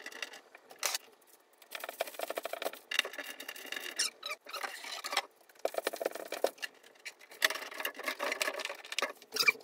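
Repeated short bursts of scratching and rubbing, each under a second long with brief gaps between, as a white pegboard is pressed and worked into place against a wall by hand.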